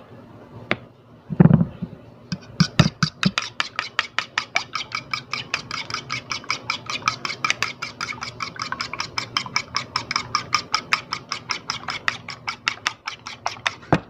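An egg is beaten in a bowl with a metal utensil, which clicks against the bowl's side about five or six times a second until shortly before the end. A single low knock comes about a second and a half in.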